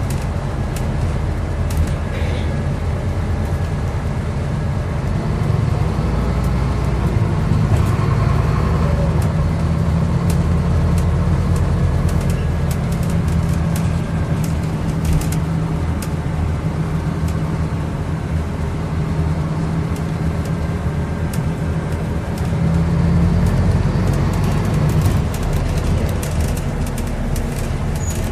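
Scania N230UD double-decker bus's five-cylinder diesel engine running under way, heard from inside the passenger saloon, swelling louder twice as it pulls, with scattered clicks and rattles.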